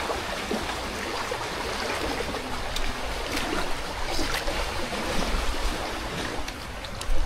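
Sea waves washing over a rocky shore: a steady rushing hiss with a few faint clicks.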